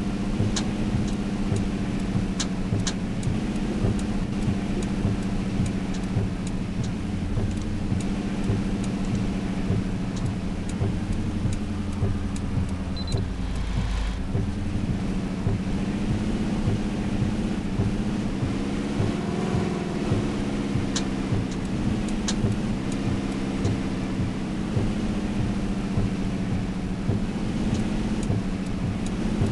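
Toyota Tundra's engine running on the move, its pitch dipping about halfway through and climbing again a few seconds later, with scattered sharp ticks throughout.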